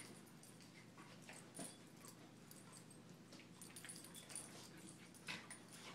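An English springer spaniel and a puppy play-wrestling on carpet: faint scuffling and short dog noises, the loudest about one and a half seconds in and again near the end.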